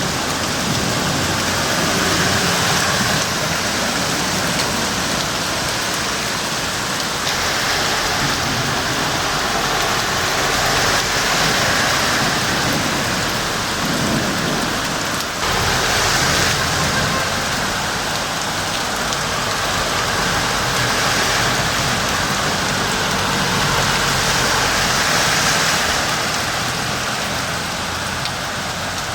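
Heavy rain pouring down, a loud, steady hiss that barely lets up, with a brief drop about fifteen seconds in.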